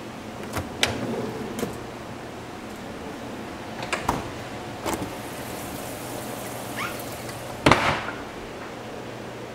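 Wooden kitchen cabinet drawers and doors being opened and shut: a string of knocks and clunks, the loudest near the end, over a low steady hum.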